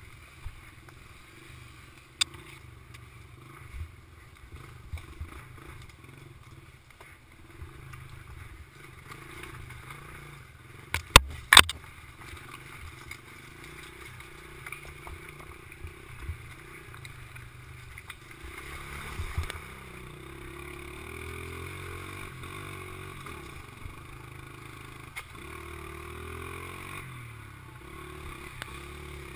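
Mini bike engine running along a rough dirt trail, its pitch rising and falling with the throttle, with the bike rattling and knocking over bumps and rocks. A pair of sharp knocks about eleven seconds in is the loudest sound.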